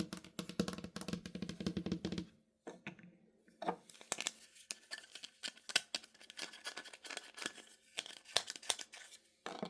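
Fast fingertip and fingernail tapping on Halloween decorations: a rapid run of taps with a hollow low ring for about two seconds, then after a short pause lighter, more scattered sharp taps and clicks.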